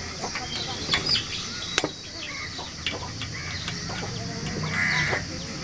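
Chickens clucking, with a loud call near the end, over a few scattered sharp clicks.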